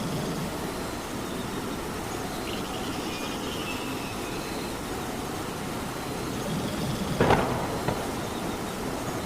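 Steady rain falling. About seven seconds in there is a sharp knock, and a smaller one follows about half a second later.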